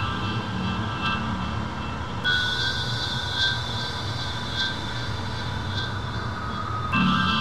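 Synthesized electroacoustic sound texture: a steady rumbling noise bed under sustained high, ringing tones, with faint pulses a little more than once a second. The high tones shift about two seconds in and shift back near the end.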